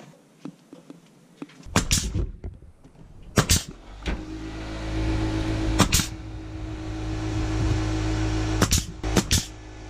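Pneumatic coil nailer firing nails through a PVC trim strip into siding: sharp shots about two, three and a half and six seconds in, then three in quick succession near the end. A motor starts about two seconds in and runs with a steady low hum behind the shots.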